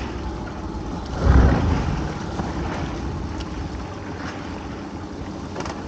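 Small fishing boat at sea: a steady low rumble with wind on the microphone and the sea around the hull, swelling briefly about a second in.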